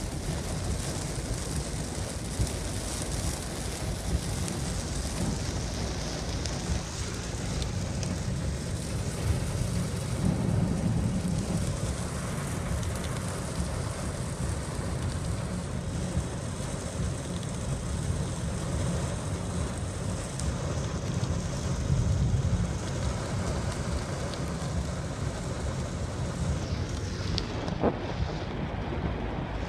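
Steady rain falling, over a low rumble that swells twice, about a third and two-thirds of the way through.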